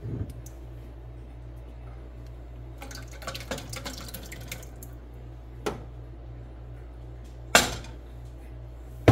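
Glass jar of thick pasta sauce tipped upside down and shaken over a metal pot, the sauce plopping out, with scattered clinks and knocks of glass and pot. Two louder knocks come near the end, over a steady low hum.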